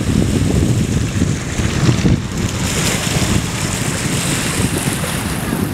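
Wind buffeting the microphone in uneven gusts, over the hiss of small waves washing on a beach; the wave hiss grows stronger about halfway through.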